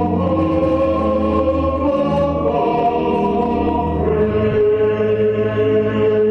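A national anthem sung by a choir, with long held chords that shift a couple of times.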